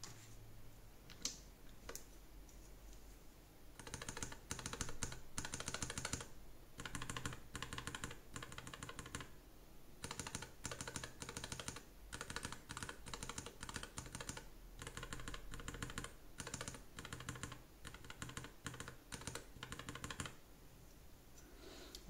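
Gateron low-profile magnetic Jade and Jade Pro switches on a Nuphy Air60 HE keyboard being pressed repeatedly by a finger for a sound comparison: runs of quick key clacks with short pauses between them. A few single clicks come in the first seconds, before the runs begin.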